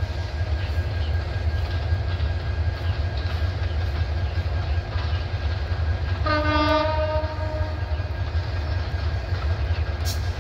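Diesel train pulling away with a steady low rumble, and one short horn blast from its American-built diesel locomotive about six seconds in.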